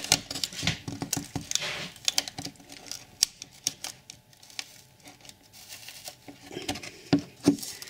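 Irregular small clicks, taps and scrapes of a model railway platform's wooden base being worked at by hand to prise it up, with a louder cluster of clicks near the end. The platform won't budge: glue around its edges is holding it.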